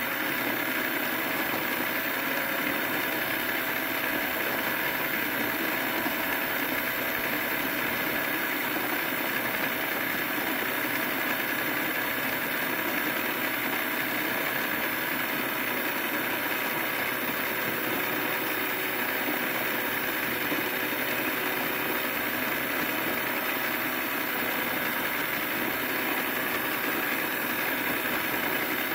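Plastic toy gears turning, driven by a small electric motor, with a steady whirring hum that holds a few faint even tones and does not change.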